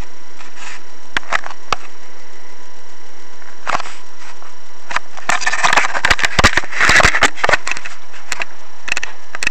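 Handling noise from a camera being picked up and turned: scattered clicks early on, then a dense run of knocks and crackling in the middle seconds, over a steady background hum.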